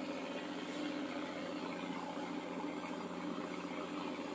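Small boat engine idling steadily, a low even hum that holds without change.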